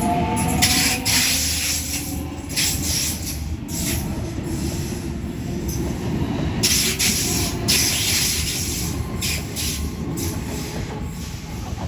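Electric passenger train running through a railway station. A steady low rumble carries repeated short bursts of high hissing and screeching from the wheels and rails.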